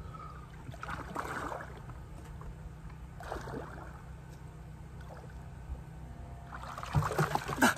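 Lake water sloshing and lapping against a wooden dock in short swashes. It grows into louder, busier splashing over the last second or so.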